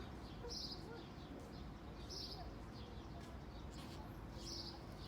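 A bird chirping again and again, short high calls every second or two, over a faint steady background hum.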